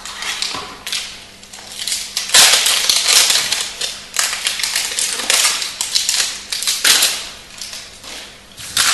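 Foil wrapper of a Magic: The Gathering booster pack being torn open and handled, a run of loud crinkling rustles, strongest in the middle.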